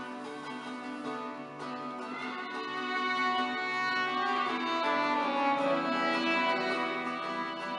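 Early-music ensemble playing live: a bowed string melody over plucked strings, growing a little louder about three seconds in.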